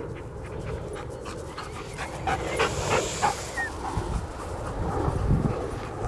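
German shepherd panting as it runs, a quick run of breaths through the middle, over a steady low rumble.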